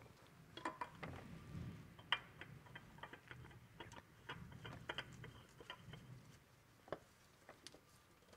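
Faint, irregular clicks and ticks as a new spin-on oil filter is screwed onto its mount by a gloved hand, the canister turning and the glove gripping and sliding on the metal.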